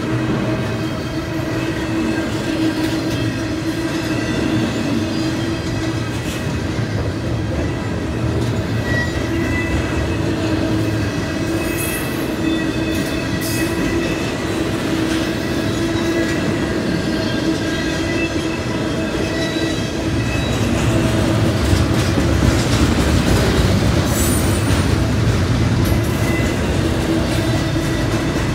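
Double-stack intermodal container cars rolling through a grade crossing: a steady rumble and clatter of wheels on rail with some wheel squeal, a little louder about twenty seconds in. The crossing's bells, a WCH mechanical bell and an electronic bell, ring under it; the mechanical bell sounds rather weak.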